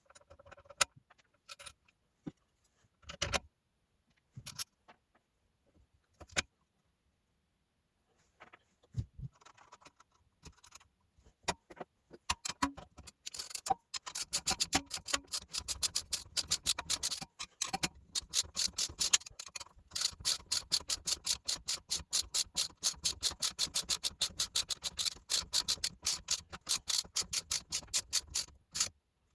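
Scattered mechanical clicks and knocks, then a fast, even clicking several times a second over a low hum, which stops shortly before the end.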